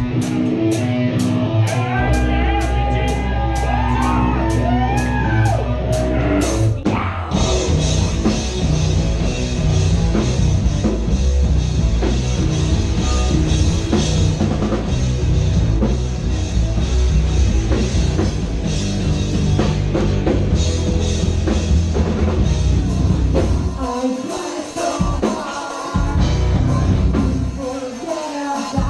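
Live heavy rock band playing loudly. A steady tap about two or three times a second runs under a held low bass note and singing, then drums and distorted guitars come in together about seven seconds in and carry on at full volume.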